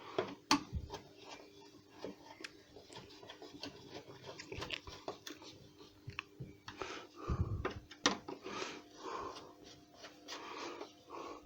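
Faint, scattered clicks and light knocks of hand tools as the two bolts holding the air intake are refitted, with one duller thump about seven seconds in.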